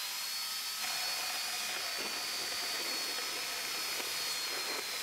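Handheld surgical bone drill running continuously with a steady high whine over a rushing hiss, its pitch wavering slightly as it works.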